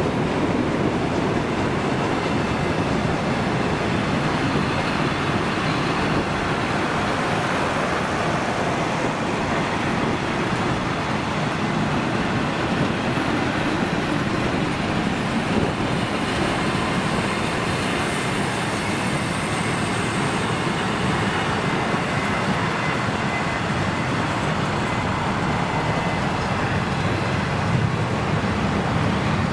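A train running, a steady, even rumble of wheels and movement with no horn or distinct clicks.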